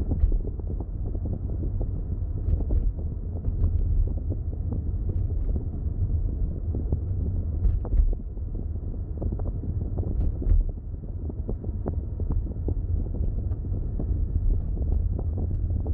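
Car driving along the road: a steady low rumble of road and engine noise, dotted with small knocks and rattles.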